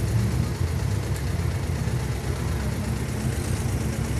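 Air-cooled Volkswagen flat-four engine idling steadily.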